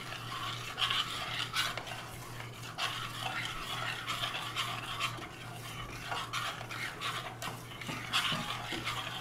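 A metal spoon stirring thick peanut sauce in a stainless steel saucepan, with irregular scrapes and light clicks against the pan.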